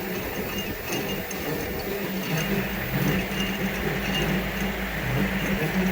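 CNC-converted benchtop milling machine running, a low motor hum that shifts between steady pitches, with faint high ticks over it.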